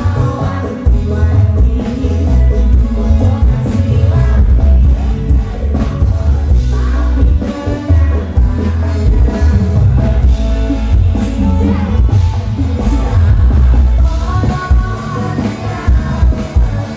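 Live dangdut koplo band playing loudly with a male lead singer, a heavy bass and drum beat under the vocal.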